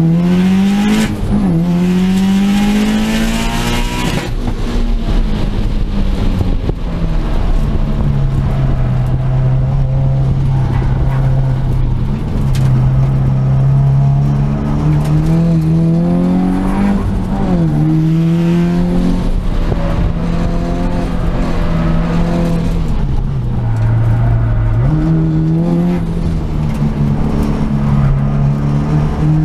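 Subaru Impreza WRX's turbocharged flat-four engine heard from inside the cabin on a hard track lap: the engine note climbs as the car accelerates and drops suddenly at gear changes, with a steadier stretch in the middle, over constant road and tyre noise.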